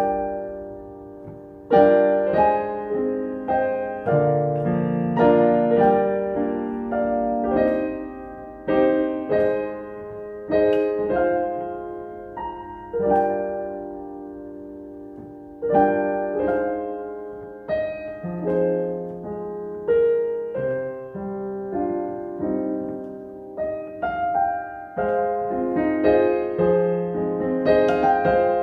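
Piano playing chords one after another, each struck sharply and left to ring and fade.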